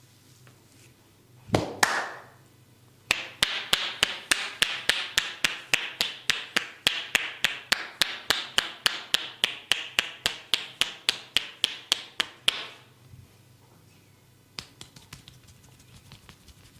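Percussive massage strokes, the masseur's hands striking the client's body: two heavy slaps, then a fast, even run of sharp hand strikes, about four a second, lasting some nine seconds, with a few faint clicks near the end.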